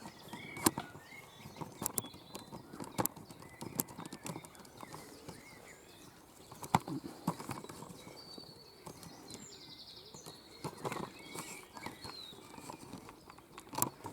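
Handling noise from a camera on a tripod being worked into a hedge: irregular clicks and knocks, with small birds chirping faintly in the background.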